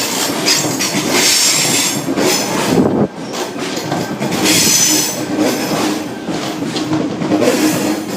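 Sydney Trains Tangara electric train running in along the platform: a loud rolling rumble of wheels on rail, with high steady wheel squeal coming and going and repeated clacks over the rail joints.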